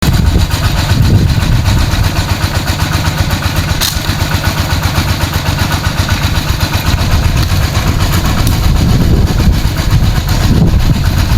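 Small engine driving a water pump, running steadily with a fast, even chugging beat.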